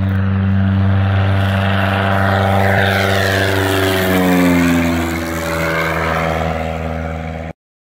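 Propeller airplane flying past: a steady buzzing drone whose pitch drops about four seconds in as it passes, then cuts off abruptly near the end.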